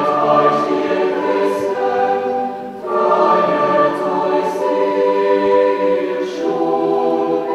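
Choir singing slow, sustained chords with recorders playing along; the harmony shifts to a new chord about three seconds in and again a little after six seconds.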